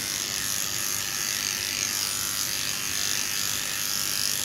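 Electric dog-grooming clipper running steadily as its blade shaves close through a dog's matted coat.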